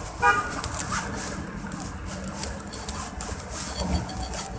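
Steady background noise with a short, pitched beep about a quarter second in, and a faint low hum in the second half.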